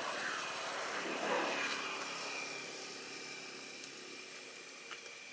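A distant motor vehicle passing: a steady engine hum that swells over the first second or so and then slowly fades.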